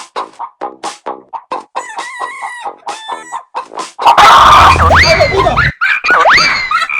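Dancing rooster alarm clock toy sounding off with rapid, rhythmic electronic clucking. About four seconds in, a loud burst breaks in, followed by repeated swooping calls a little under a second apart.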